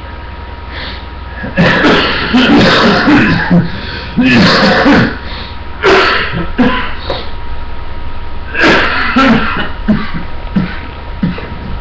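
A person's voice making loud, unintelligible vocal noises in about four bursts, with no clear words, over a steady electrical hum.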